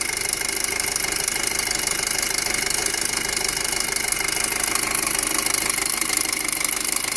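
2007 Volkswagen Passat 2.0T turbocharged four-cylinder engine running steadily at idle with a loud, rapid ticking clatter and a steady high-pitched tone.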